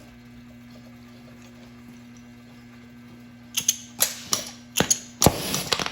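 A steady low hum, then a quick run of about seven sharp mechanical clicks and clatters in the last two seconds.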